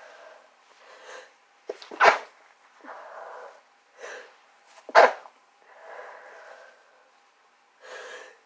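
A person with a head cold sneezing twice, about three seconds apart, as part of a sneezing fit, with noisy, breathy in-breaths and sniffs between the sneezes.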